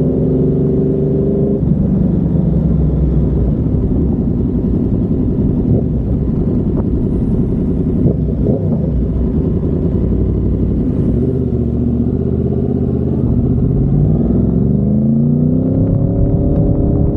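Yamaha MT-10's crossplane inline-four through an SC Project carbon-titanium exhaust. The revs drop early on as the throttle closes, stay low through the middle, then rise near the end as it accelerates again.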